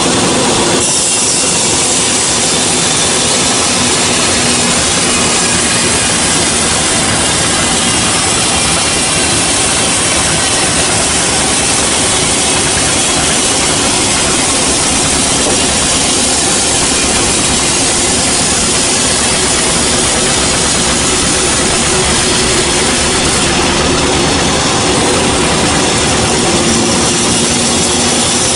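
Band sawmill cutting through a gmelina log: steady, loud saw noise over the machine's running hum.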